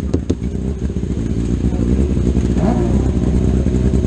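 A 600cc micro sprint car's motorcycle engine idling steadily, with a couple of sharp clicks just after the start.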